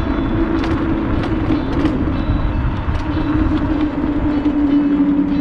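Electric motor of a high-speed mobility scooter whining at a steady pitch while riding along, over rumbling wind and road noise, with a few light clicks.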